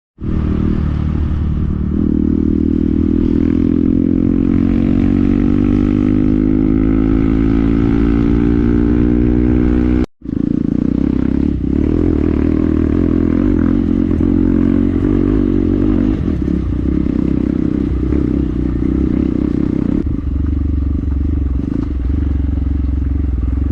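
Hero XPulse 200 4V's single-cylinder four-stroke engine running under load, its pitch rising steadily for several seconds as the bike accelerates. It cuts out for a split second about ten seconds in, then runs on loud and hard at a high, fairly steady pitch.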